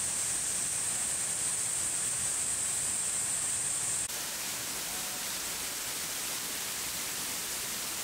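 Steady rush of a waterfall pouring onto rocks. About halfway through, the sound changes abruptly: a high hiss drops away and the rush becomes a little quieter.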